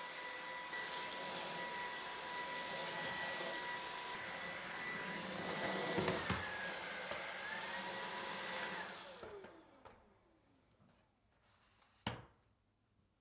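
Electrolux cordless stick vacuum running with a steady high whine. About nine seconds in it is switched off, and its motor pitch falls as it spins down. A single click comes near the end.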